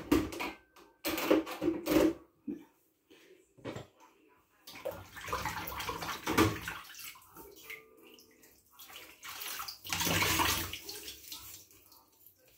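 Washing up by hand in a stainless steel sink: a few clattering knocks in the first couple of seconds, then bursts of water sloshing and splashing as items are moved and scrubbed with a sponge.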